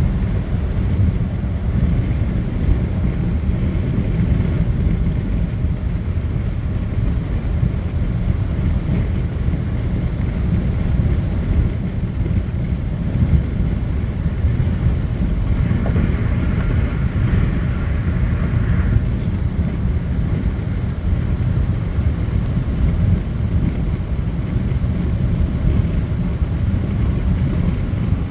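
Steady road noise and wind rushing into the cabin of a moving car, buffeting the phone's microphone. A brief higher hiss rises above it about two-thirds of the way through.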